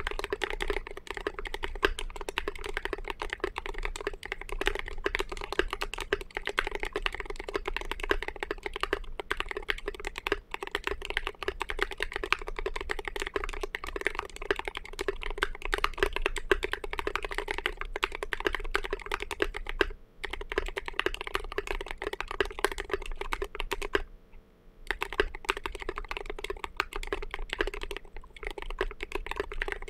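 Typing on an RM.6 mechanical keyboard with Thic Thock Marshmallow switches and Signature Plastics SA-profile Snow Cap keycaps: a fast, steady run of keystrokes, with a brief pause about 24 seconds in.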